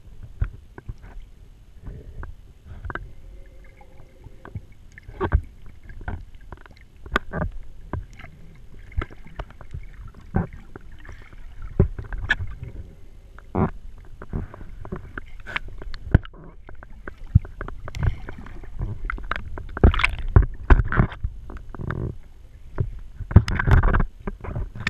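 Water heard through a camera held underwater: a low, muffled rumble of moving water with frequent short knocks and clicks, getting louder and busier near the end.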